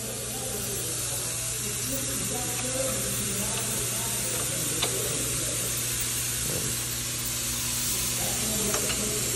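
Steady hiss and low hum of a car repair shop, with a few light clicks as hands work at the lower bolts of a front strut.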